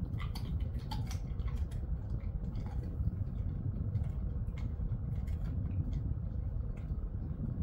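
Dog chewing a dried treat: irregular crunching clicks, over a steady low hum.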